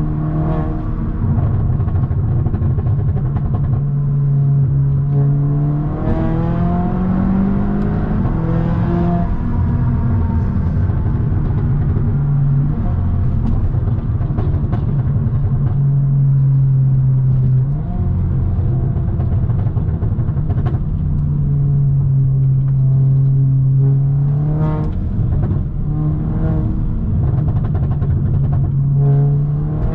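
A 2017 Audi S3's turbocharged 2.0-litre four-cylinder engine and exhaust under way. The engine note climbs through the revs and drops back at a gear change, then mostly holds a steady cruise. A few short pops come from the exhaust in the second half.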